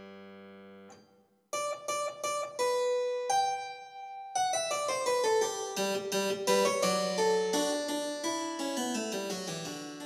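Background music on a keyboard instrument. A held chord fades out, then after a brief gap come single struck notes, and from about four seconds in a quicker run of notes stepping downward.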